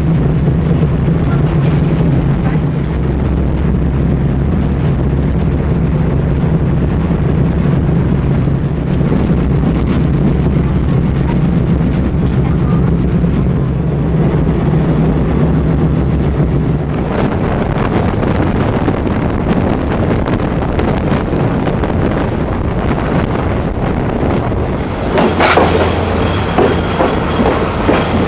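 Running noise of a train heard from inside an old ex-JR West 14-series passenger coach: a steady low hum over the rumble of the wheels on the track. About 25 seconds in a sudden louder burst of rattle is followed by a faint thin high tone as the train comes into a station.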